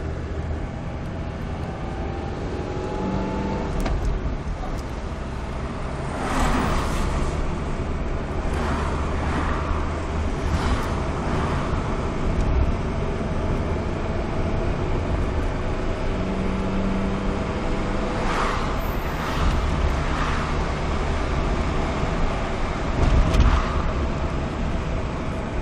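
Fiat Panda's worn, high-mileage 1.0 FIRE four-cylinder engine and road noise heard from inside the cabin while driving at about 50 km/h. The engine note rises in the first few seconds, and there are a few brief louder rushes of noise.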